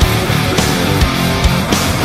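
Heavy rock background music with distorted guitars and a driving drum beat.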